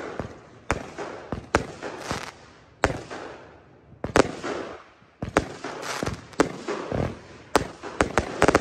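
36-shot 'All Fire No Ice' firework cake firing: a string of sharp launch thumps and aerial shell bursts at irregular intervals, each dying away in a fading tail. There is a short lull midway and a quick run of bangs near the end.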